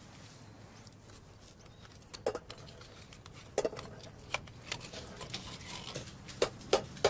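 A utensil scraping and tapping wet pet food out of a metal tin into a pet bowl: a string of short, sharp clicks and knocks at uneven intervals, starting about two seconds in.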